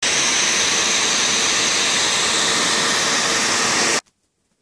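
Hot-air blower running steadily, a loud even rush of air with a faint steady hum, shrinking heat-shrink tubing; it cuts off suddenly about four seconds in.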